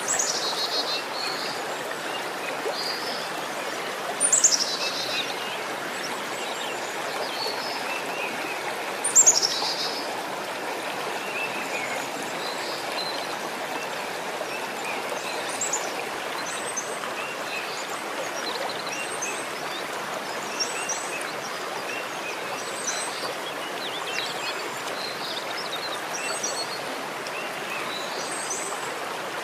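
Steady rushing of running water, with small birds chirping throughout. Two louder, high calls fall in pitch, about four and nine seconds in.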